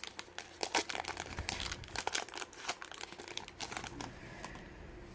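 Foil wrapper of a Topps Chrome trading-card pack crinkling as it is torn open, a dense run of irregular crackles that dies down about four seconds in.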